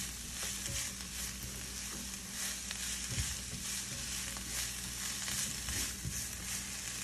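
Sliced onions and bell peppers sizzling steadily in a hot skillet while a silicone spatula stirs and pushes them around the pan, with faint scattered ticks from the stirring.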